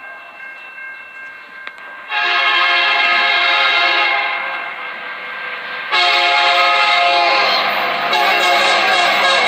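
Diesel locomotive's air horn blowing a chord of several tones as the train approaches. A faint blast fades away, a loud blast starts about two seconds in and eases off, and another loud, long blast starts about six seconds in. The low rumble of the oncoming train grows beneath it near the end.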